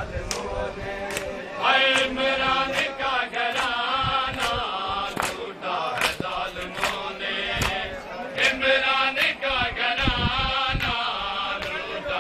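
A crowd of men chanting a lament in unison, with sharp chest-beating slaps (matam) that repeat about every second in time with the chant.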